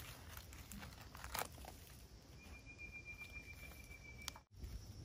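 Soft rustling and crackling of dry leaves and grass as mushrooms are pulled by hand from a tree stump, with a few sharper crackles, the loudest about a second and a half in. A faint thin high tone holds steady for about two seconds in the middle.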